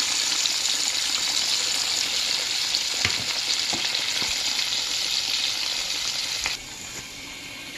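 Battered chicken pieces sizzling in hot oil in a deep frying pan, a dense steady hiss with a couple of faint pops. About six and a half seconds in the sizzle drops suddenly to a quieter level.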